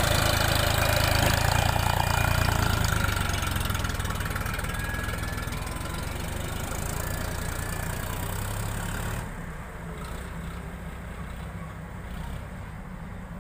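Tractor diesel engines running, loudest in the first few seconds, then abruptly quieter and duller about nine seconds in.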